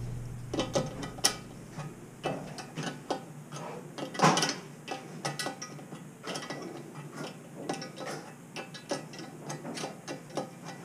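Hand tool working a nut on the brass outlet bolts under a wall-hung urinal: a run of uneven metallic clicks and taps, the loudest about four seconds in.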